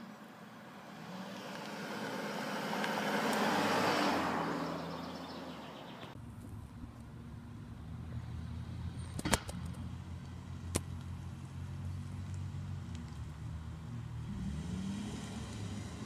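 Cars at a stop-sign intersection: a car passes, its tyre and engine noise swelling to a peak about four seconds in and fading. After an abrupt change, a car engine runs with a steady low hum, broken by two sharp clicks, and another car's noise rises near the end.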